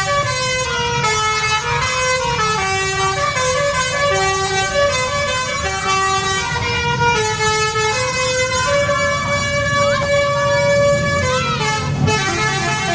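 Indonesian 'telolet' multi-tone bus horn playing a tune of held notes that step up and down in pitch, over the bus engine's low rumble.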